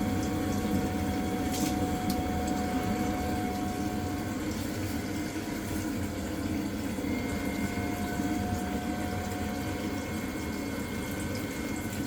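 Vaillant ecoTEC combi boiler running on a hot-water demand: a steady whine from its fan and pump over water rushing through the pipes and tap, with a second, higher tone joining about seven seconds in. The boiler is starting and running on demand instead of blanking out.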